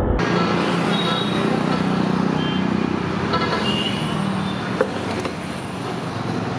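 Roadside traffic noise: a steady hum of passing vehicles, with a low engine drone in the first few seconds and a few short high-pitched tones scattered through.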